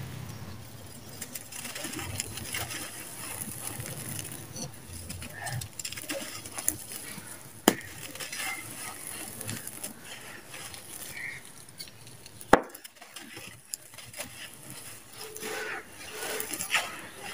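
Hands digging into, squeezing and crumbling dry red sand-cement powder, with gritty rustling and grains trickling back onto the heap as it is poured from above. Two sharp clicks stand out, one about 8 seconds in and a louder one near 13 seconds.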